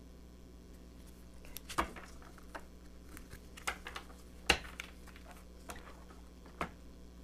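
A tarot card deck being handled and shuffled: a scattering of short, sharp card taps and clicks, the two loudest about two seconds in and about halfway through, over a low room hum.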